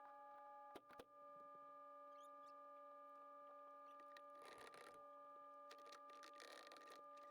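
Near silence: a faint steady hum, with a couple of faint clicks about a second in and faint rustling later on.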